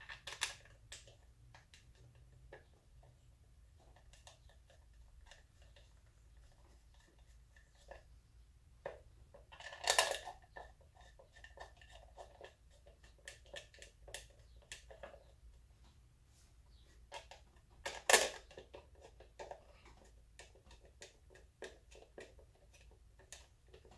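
Scattered clicks, clinks and scrapes of hand tools and metal parts being handled on a partly dismantled ATV, with two louder sharp clanks, one about ten seconds in and another near eighteen seconds, over a faint low hum.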